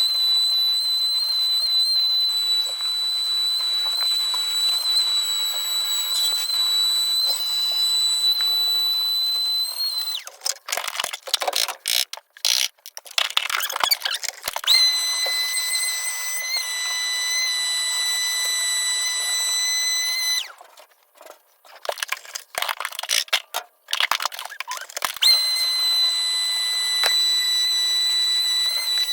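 A high, steady machine whine, like a power tool's motor, running in three long stretches of about ten, six and four seconds, with knocks and clatter of work between them.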